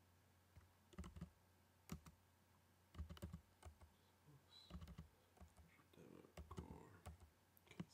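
Computer keyboard keystrokes: scattered typing, single keys and short quick runs of keys with pauses between them.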